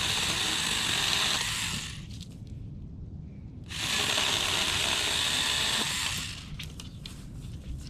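Stihl GTA26 battery-powered mini chainsaw cutting through a branch, its chain rattling through the wood in two loud spells of two to three seconds each, with a quieter stretch between them.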